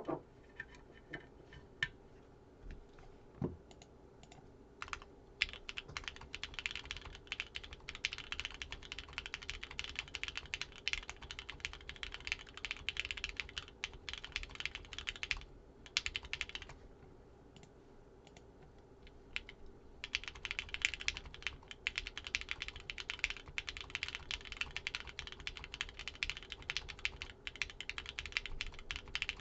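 Typing on a Cosmo60 mechanical keyboard with an aluminum case on an O-ring mount, aluminum plate, Gateron Hippo switches and GMK Space Cadet keycaps. A few scattered keystrokes, then fast steady typing for about ten seconds, a pause of a few seconds with only a short burst of keys, and typing again.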